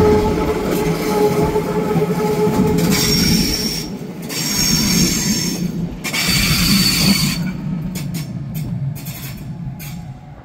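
Rorschach-Heiden-Bergbahn BDeh 3/6 electric railcar and its open observation cars rolling slowly into the station, with a steady whine in the first few seconds. The running gear squeals high-pitched three times as the train brakes, then a few sharp clicks and squeaks come as it draws to a stop and the sound dies down.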